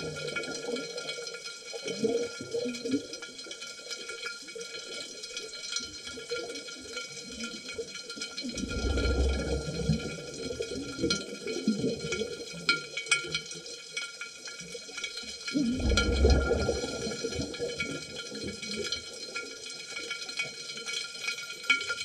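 Scuba diver exhaling through a regulator, heard underwater: bursts of rising bubbles that gurgle and rush, the two loudest about halfway through and about three-quarters of the way through. Steady faint high tones and scattered clicks run underneath.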